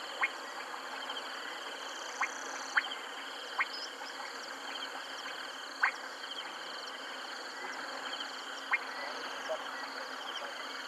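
Wetland night chorus: insects trilling steadily, with short, sharp, click-like frog calls every one to three seconds.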